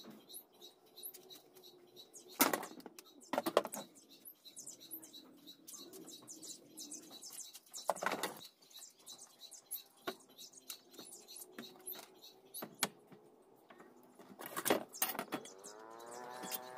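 Sliding-door roller hardware and an aluminium track being handled on a wooden workbench: a handful of sharp knocks and light clatter as the parts are picked up and set down, over faint high chirping.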